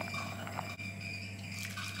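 Pasta water boiling in a stainless steel pot over a steady kitchen hum. After a sudden break, a metal ladle briefly clatters against the pan of tomato sauce near the end.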